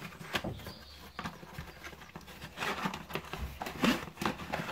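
Handling noise of a small box being opened and plastic speaker adapter rings taken out: scattered rustles and light clicks, busiest from about two and a half to four seconds in.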